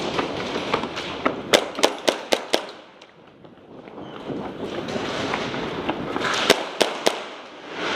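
Airsoft guns firing: a quick string of sharp shots about a second and a half in, then three more shots near the end, over steady background noise.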